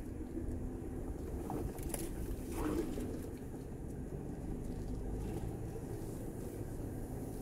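Off-road 4x4 engine running steadily at low speed while driving a trail, with a brief louder noise about two and a half seconds in.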